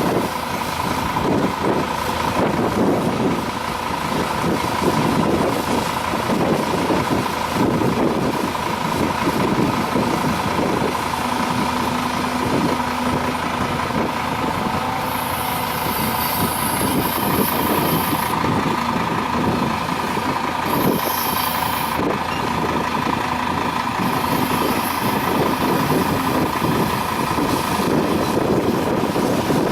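Caterpillar 336D long-reach excavator's diesel engine and hydraulics running as it digs, the engine note rising and falling with the load over a steady high whine. A few spells of high hiss come past the middle.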